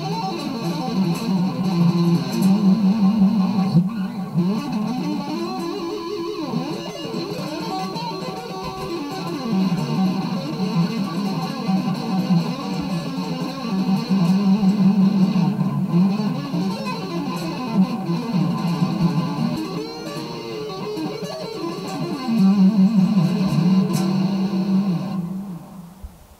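Electric guitar played through an amplifier: riffs and lead lines over a low held note, fading out near the end.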